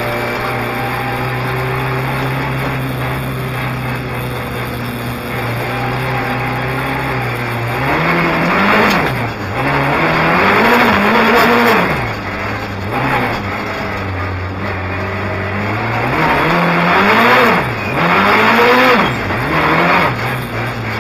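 Rally car engine heard from inside the cockpit, running steadily at low revs, then revved hard up and down in quick swings during two spells of hard driving with tyres squealing. It settles back to a steady low note near the end.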